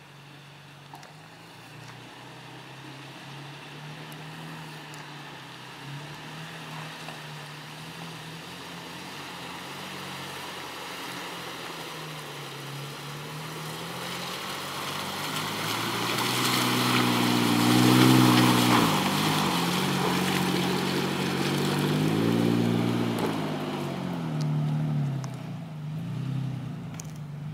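Toyota Tacoma pickup's engine running as the truck drives slowly over a dirt trail, coming closer and passing by. The engine hum grows steadily louder, rises and falls in pitch with the revs twice as it climbs, is loudest about two-thirds of the way in, then drops back a little as it pulls away.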